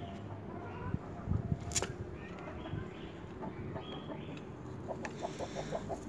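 Green shade netting over a pigeon enclosure being handled, with a few soft knocks and rustles about a second in. Near the end comes a quick run of about seven short clucks from a chicken.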